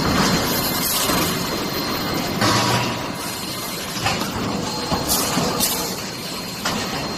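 Automatic bolt-head hot forging line running: a mechanical forging press and its transfer arms make a steady loud clatter, broken by a handful of sharp metal clanks as the press strikes the red-hot blanks.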